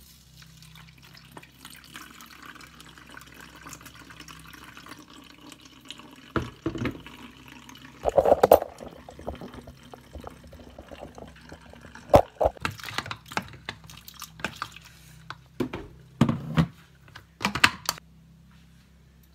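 Liquid being poured into a plastic bottle through a funnel, with a faint steady run of liquid at first and then several short knocks and clatters of the bottle and containers being handled.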